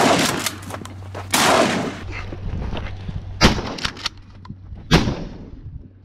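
Shotgun fired several times, with sharp blasts a second or two apart: one at the start, then about one and a half, three and a half and five seconds in.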